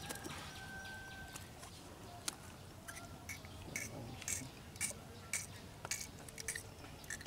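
Faint, irregular small clicks and ticks of a small caught fish being handled and unhooked from a fishing line, over quiet outdoor ambience, with a brief faint whistle-like tone about a second long near the start.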